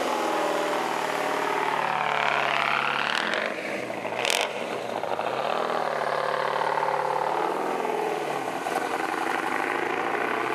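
Twin-turbo V8 in a classic Dodge Charger driving off: the engine revs up, dips twice with a short hiss about four seconds in, holds a steady pull, then drops off near the end.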